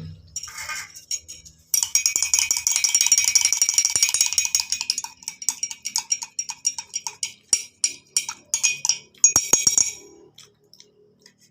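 A spoon stirring an egg-and-honey mixture fast, clinking rapidly and ringing against the side of its container. After a few seconds it slows to separate taps and stops.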